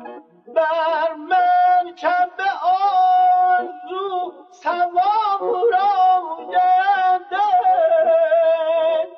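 Unaccompanied solo melody in Persian classical style, played in short breath-length phrases with quick wavering ornaments and slides in pitch.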